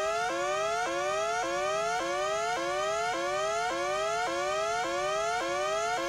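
Emergency-alert (EAS-style) electronic siren tone: a whooping pitch that rises over about half a second, then drops sharply back and sweeps up again, repeating evenly nearly twice a second.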